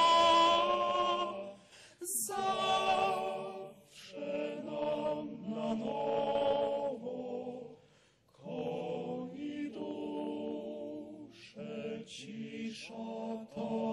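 Male a cappella choir singing a slow song in sustained phrases, with short breaths between them.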